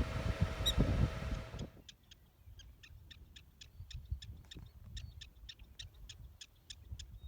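Black-tailed prairie dog giving its repeated alarm call: short, sharp high chirps, about four a second, kept up steadily. A low rumble of noise on the microphone covers the first second and a half.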